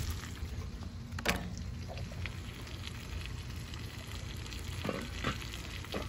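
Hassa curry cooking in a pot on an outdoor gas burner, a soft steady sizzle and bubble under a low rumble. A few short knocks, the loudest about a second in and two close together near the end.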